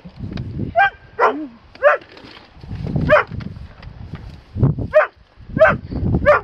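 A series of about seven short, sharp animal calls at irregular intervals, each rising and falling in pitch, with low rumbling and thumps in between.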